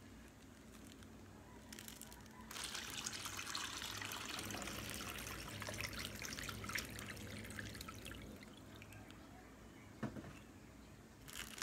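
Water poured from a plastic pitcher into a thin plastic bag, filling it to be frozen into ice. The pour starts about two and a half seconds in and tapers off after about six seconds. A short knock comes near the end.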